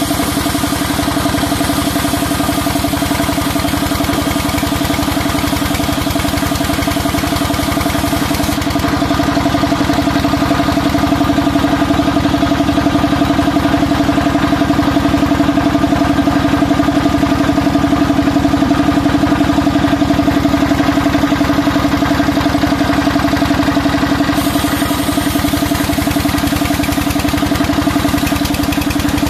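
Sawmill saw machinery running with a loud, steady hum at a constant pitch while a squared timber is fed through it.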